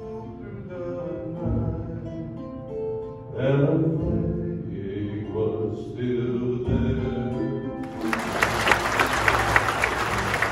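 Live singing with instrumental accompaniment, ending in long held notes. About eight seconds in, audience applause breaks out and is the loudest sound.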